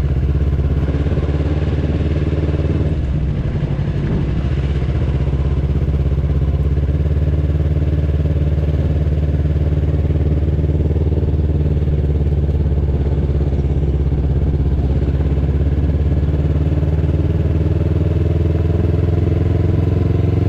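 Sport motorcycle's engine running at low, steady revs while the bike is ridden slowly.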